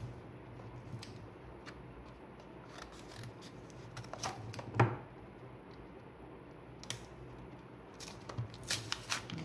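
Hands working at sealed product packaging to get it open: scattered clicks and crackles of the packaging, with a sharp snap about five seconds in and a quick run of clicks near the end.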